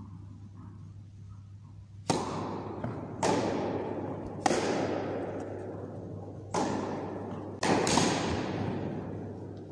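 Tennis ball struck by rackets and bouncing on an indoor carpet court during a rally: about six sharp pops starting about two seconds in, each echoing through the hall.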